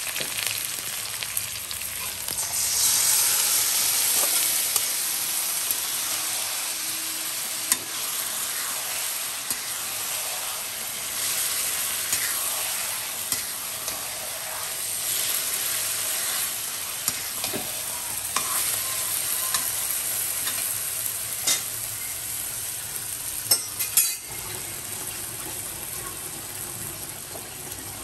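Marinated mutton sizzling and frying in hot mustard oil in a kadai as it is stirred and turned, the kosha stage of a mutton curry. The sizzle swells about three seconds in, with a few sharp knocks, two of them close together near the end.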